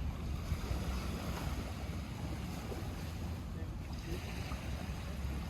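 Small lake waves lapping, under a steady low rumble of wind on the microphone.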